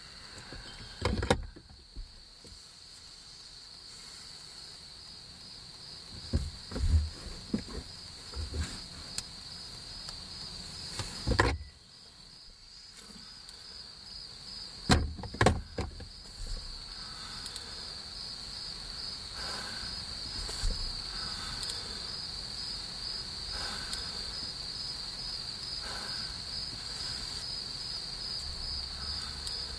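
Crickets chirping in a steady high pulsing chorus. It is broken by a few soft thumps and sharp clicks, the sharpest about eleven and fifteen seconds in.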